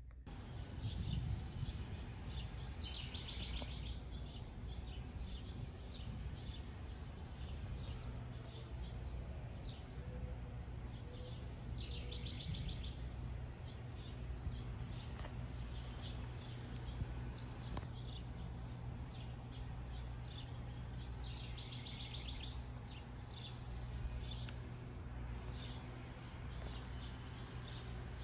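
Songbirds in the trees. One bird sings a short, fast trill that falls in pitch, three times about nine seconds apart, over scattered chirps from other birds and a steady low background noise.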